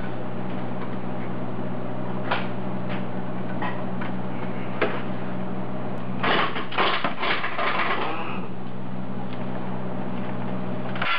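Duct tape being pulled off the roll and torn in a cluster of rasping, crackling sounds about six seconds in, then pressed down onto the cast-iron engine housing. Earlier, a few light clicks from a metal scribe and template, over a steady low hum.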